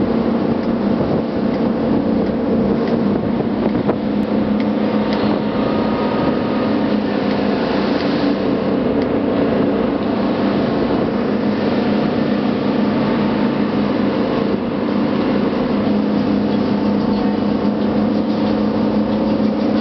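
Motorboat engine running steadily at cruising speed, a constant low drone with the rush of water and wind over the hull.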